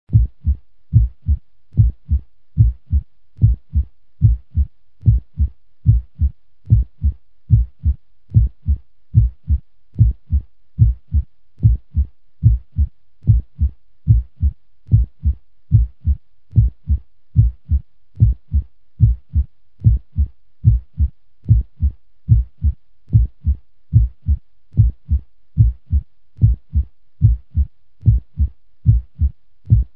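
Heartbeat sound effect at a normal resting pace: a steady lub-dub double thump, low and even, repeating a little more than once a second.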